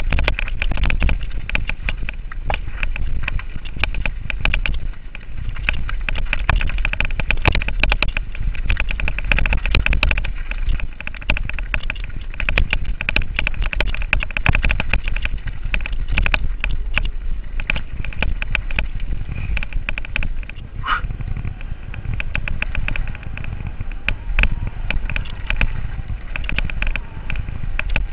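Giant Reign full-suspension mountain bike rattling fast down a rocky single track: a constant clatter of chain, frame and tyres over stones, over a heavy rumble of wind on the camera's microphone.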